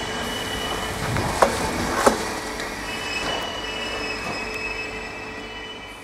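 ÖBB passenger coaches rolling past on curved station track, wheels squealing thinly, with two sharp knocks from the rail joints about a second and a half and two seconds in. The sound fades as the train draws away.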